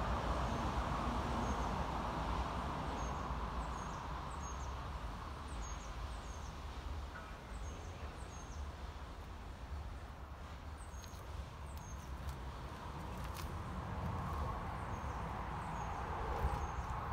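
A small bird chirping a short, high, falling note over and over, every second or so, over a steady low rumble.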